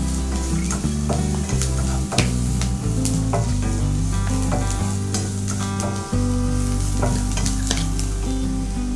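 Background music: sustained low notes and chords that change every second or so, with scattered light clicks over it.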